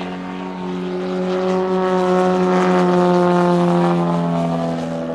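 Valach two-cylinder boxer engine and propeller of a large-scale RC Pitts biplane in flight, a steady engine note that grows louder toward the middle and eases a little near the end.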